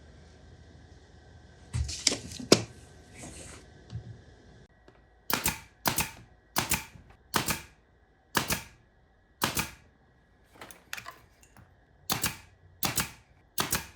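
A few knocks, then from about five seconds in a run of sharp mechanical clicks at an irregular pace of about one or two a second, from hands working a tool or part at the workbench.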